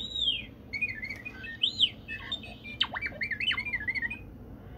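Robot's small MP3-player speaker playing a warning sound of warbling electronic chirps and short beeps that sweep up and down in pitch, stopping a little past four seconds in. It is the alert meant to sound when the robot's motors start up, as a warning to step back.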